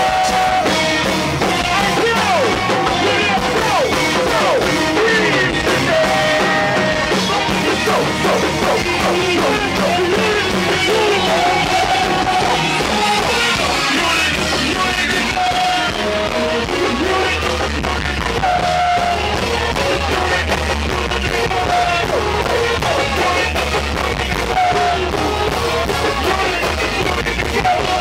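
Go-go band music playing loudly and steadily, with a vocalist singing and shouting over the groove. The bass gets heavier about halfway through.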